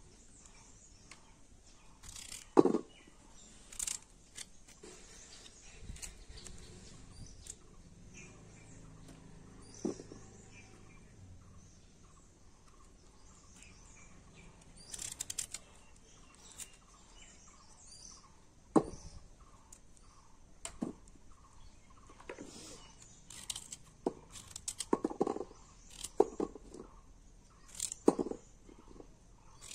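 Knife cutting raw green mango, with sporadic crisp cuts and knocks as pieces drop onto a steel plate. The cuts come sparsely at first, then much more often in the last several seconds.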